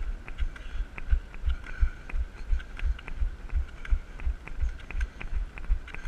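Running on crutches: a steady rhythm of dull low thumps, about three a second, with faint clicks from the crutch strokes and footfalls on pavement.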